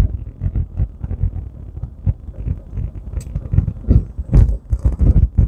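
A vehicle driving, heard as a low rumble of road noise with irregular low thumps.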